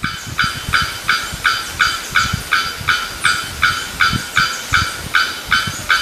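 Male bearded bellbird calling: a long series of short, identical notes repeated about three times a second.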